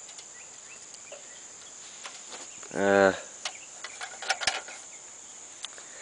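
A steady high-pitched drone of crickets, with a short hummed voice sound about halfway through and a few sharp clicks and taps just after it.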